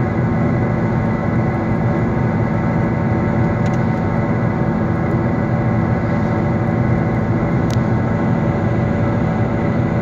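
Badly worn wheel bearing howling, heard inside a moving car's cabin over road noise: a loud, steady howl from a bearing in its last stage just before grinding.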